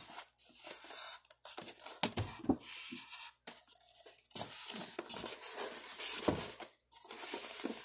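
Plastic wrapping crinkling and polystyrene foam packaging rubbing as the foam tray of a drone box is handled and turned around, in irregular rustles and sharp clicks.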